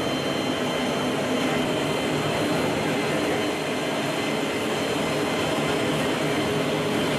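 Steady noise of a C-17 Globemaster III's turbofan engines and rushing air, heard inside the cargo hold with a side jump door open. A few faint steady high tones sit above it.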